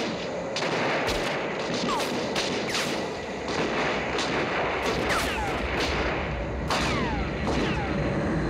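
Film soundtrack gunfire: irregular shots and volleys over a steady noisy roar, with short falling whistles between the shots.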